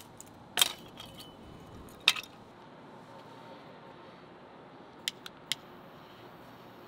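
Hatchet blade striking a stick of kindling twice, sharp knocks with a brief ring, the second the loudest. Near the end, three quick clicks, typical of a butane torch lighter's igniter being pressed.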